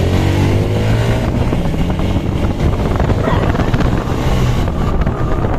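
TVS Apache RTR 4V motorcycle's single-cylinder engine accelerating hard under throttle, its pitch rising for about a second as it revs up. After that, wind buffeting on the microphone grows over the engine as the speed climbs.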